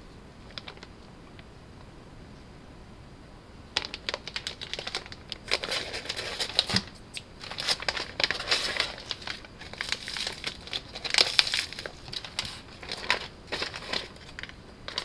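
Crinkling and rustling of food packaging, a paper pouch and the vacuum-sealed plastic pack of meat inside it, being handled and pulled out, starting about four seconds in.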